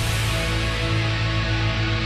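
Heavy rock music: distorted electric guitar and bass hold a sustained chord over a steady low bass note, with no singing.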